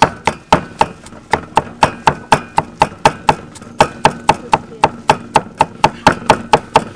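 Cleaver chopping peeled garlic cloves on a thick round wooden chopping block: a steady run of sharp knocks, about four a second.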